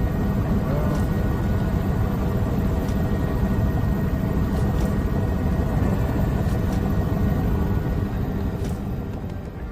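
A steady low engine rumble with faint steady tones above it, fading away over the last second or two.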